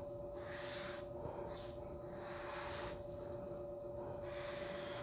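Foam sponge brush stroked over Kent paper, spreading cyanotype sensitizer: soft swishing brush strokes, a few in a row with short gaps between them.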